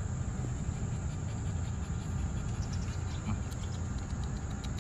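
Steady high-pitched insect chirring over a low rumble, with a few faint ticks near the end.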